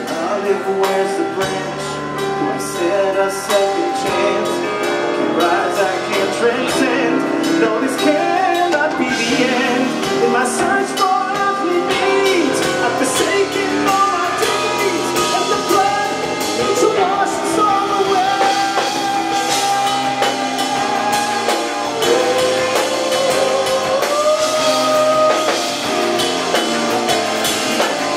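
Live rock band playing, with drum kit, bass, guitars and keyboards, and a male voice singing a wordless melodic line over the band.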